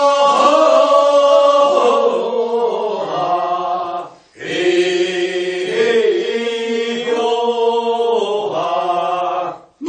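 Group of singers chanting the drawn-out refrain of a Korean rice-paddy weeding song (non-maeneun sori, first weeding) in unison. It is answering the lead singer's verse in call-and-response. Two long held phrases, with a short breath break about four seconds in.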